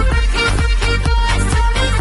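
Loud music with a heavy, steady bass beat and percussion.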